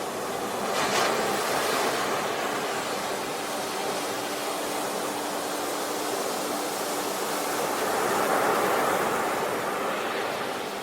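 Ocean surf: waves breaking and washing in a steady rush, swelling about a second in and again near the end.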